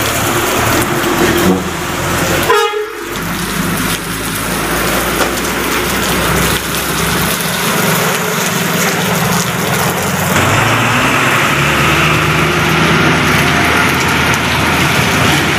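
Heavy diesel trucks driving past in heavy rain: engines running, with tyres hissing through standing water on the road.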